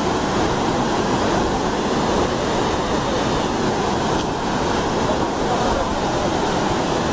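Torrent of flood water pouring off a high hillside chute and crashing onto the ground below: a steady, loud rushing of water that does not let up.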